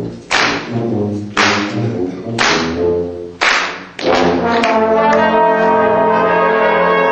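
School brass band playing the closing bars of a march: loud accented chords, each hit with a crash, about once a second, then one long held chord from about four seconds in.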